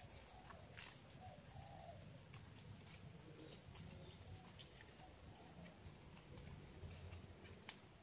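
Near silence: faint crinkles and small clicks of folded origami paper being pinched and shaped by hand, over a low steady hum.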